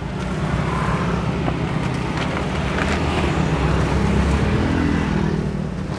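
Engine of a passing motor vehicle, growing louder about half a second in and fading away near the end, with a few light clicks over it.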